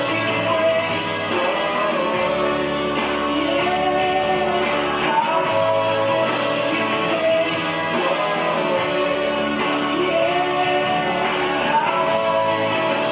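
Background music: a rock or pop song with a sung melody over guitar and a steady bass line.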